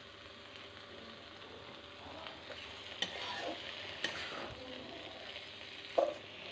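Okra frying in a kadhai on low heat, hissing faintly, then a metal spatula stirring it, scraping the pan with a few sharp clicks from about two seconds in.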